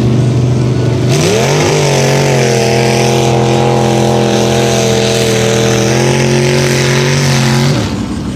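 Mud bog vehicle's engine running, then revving up about a second in and holding high revs steadily for about six seconds over a loud rushing noise, before the revs drop off near the end.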